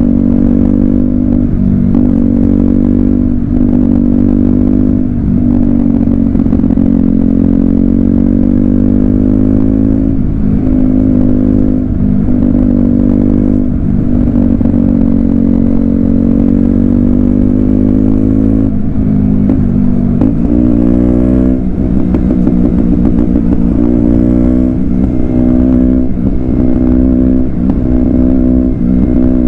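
KTM Duke 125's single-cylinder four-stroke engine running while the bike is ridden, its note climbing slowly over stretches of several seconds and broken by brief dips every few seconds as the throttle is eased or gears change.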